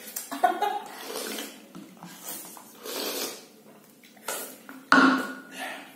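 Hands-free drinking of cola: slurping from a plate and gulping from a plastic bottle held in the mouth, in irregular wet bursts, with a louder burst about five seconds in.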